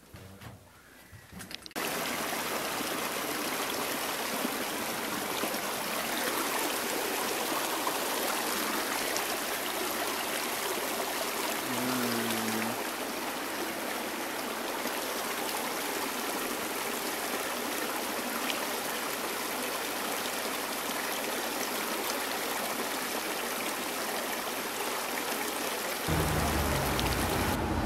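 Shallow rocky mountain creek running: a steady rush of water over stones, starting about two seconds in.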